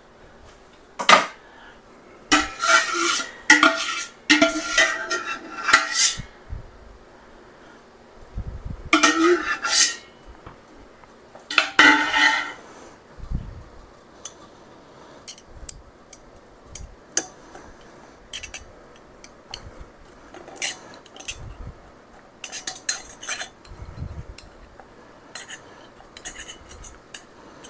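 Metal ladle clanking and scraping against a stainless stockpot and a canning funnel as apple pie filling is ladled into a glass mason jar, with loud ringing clanks in bursts over the first dozen seconds. After that come many light taps and clicks as a thin utensil pushes the apple slices down into the jar through the funnel.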